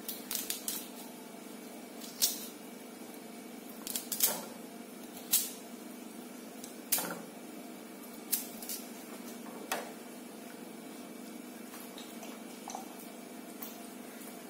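Kitchen knife cutting carrots on a ceramic plate: irregular sharp clicks as the blade strikes the plate, mostly in the first ten seconds, over a steady low hum.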